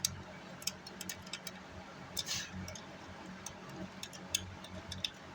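Irregular light clicks and taps of small hand tools working over an amplifier circuit board, with a short scratchy rush about two seconds in, over a steady low hum.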